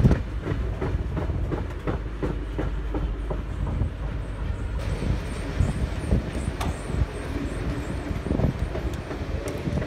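Heritage passenger carriages rolling past close by: a steady rumble of steel wheels on rail, broken by irregular clickety-clack as the wheels cross the rail joints.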